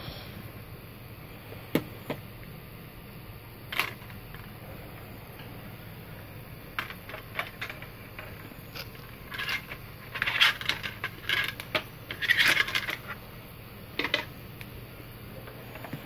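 Small hard plastic parts of a phone being handled: scattered sharp clicks, then a busy run of clicking and scraping in the middle, over a faint steady low hum.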